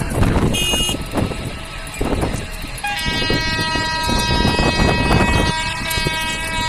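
Passenger train running with a steady rumble, heard from on board as it approaches a station. There is a short high toot about half a second in, and from about three seconds in the train's horn sounds long and steady.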